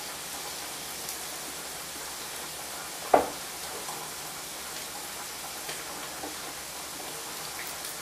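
Steady sizzling hiss of food frying in a pan, with one sharp knock about three seconds in and a couple of faint ticks later.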